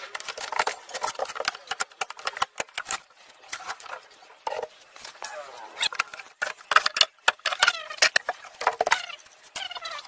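Sharp metal knocks and clatter from the dismantled cabinet of a chest deep freezer being pried apart with a metal rod. Repeated pitched fowl calls sound over it, mostly in the second half.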